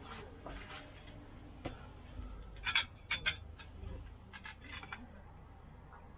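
Awning poles clinking and knocking as the sections are handled and fitted together: a string of sharp clinks, the loudest few close together a little under halfway through.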